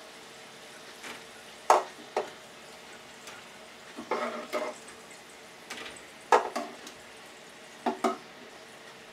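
A metal utensil knocking and scraping against a stainless-steel deep fryer as French fries are taken out of the oil, in a series of irregular sharp clinks. Behind them is a faint steady frying sizzle.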